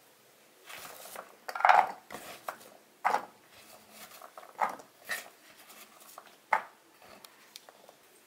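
Diced guava pieces being scooped by hand off a wooden chopping board and dropped onto a plate: a run of short, irregular clatters and scrapes, the loudest a little under two seconds in.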